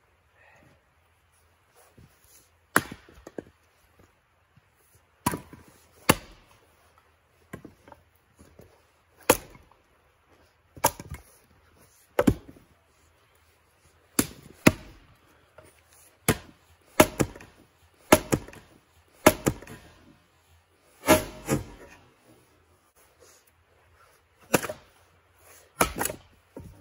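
Two axes splitting firewood rounds: about twenty sharp, uneven strikes of the blades into wood, some in quick pairs, with split pieces knocking together and dropping after several of them.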